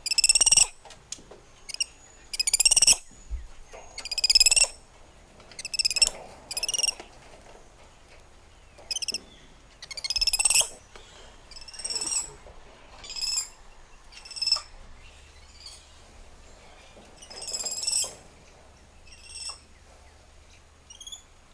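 Spider monkeys calling: a series of high-pitched, whinny-like calls, each under a second, one every second or two, some loud and some fainter. The sound cuts off abruptly at the very end.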